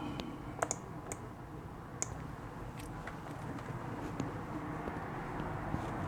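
A few sharp light clicks at irregular spacing, the clearest about half a second, one second and two seconds in, over a faint steady low hum.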